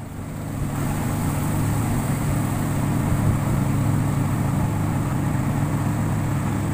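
Honda inboard engine of a wooden river longboat (pompong) running under way. It grows louder over the first second, then runs steadily with a low, even drone.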